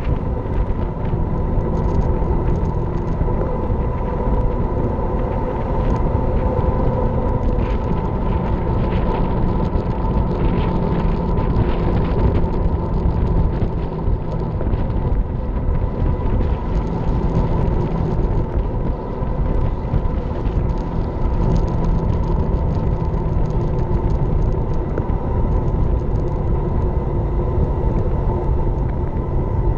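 Steady wind rush and tyre rumble on a bike-mounted action camera's microphone as a road bike rolls along at speed.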